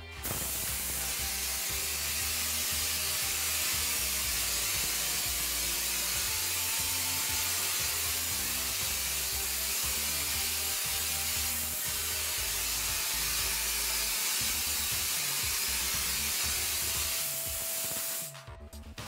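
Compressed air hissing out of a hose-fed hopper spray gun as it blasts cement plaster onto a wall. It is one loud, steady hiss that starts abruptly and cuts off about a second before the end, with background music underneath.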